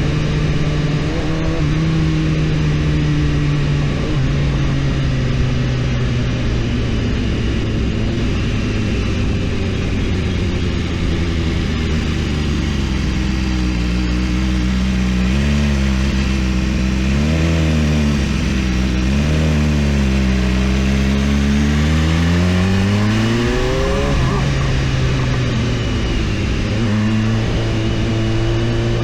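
BMW S1000RR inline-four engine running under way. Its pitch sinks slowly, wavers up and down a few times with the throttle, then climbs in one pull before dropping abruptly, as at an upshift, and holding steady near the end.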